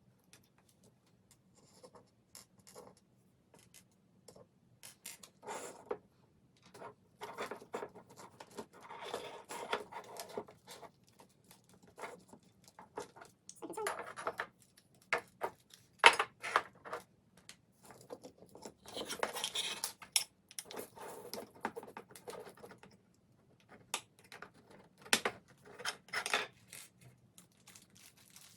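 Hands taking apart a small combat robot: irregular clicks, scrapes and rattles of parts and tools being handled, with a sharp click about 16 seconds in.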